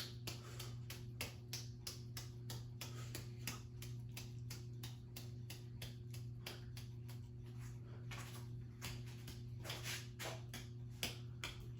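42-inch Craftmade ceiling fan running on its fast speed: a steady motor hum with light ticking about three times a second.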